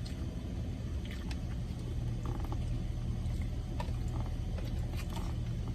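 Scattered small clicks and mouth sounds of people chewing and eating chicken wings, over a steady low hum.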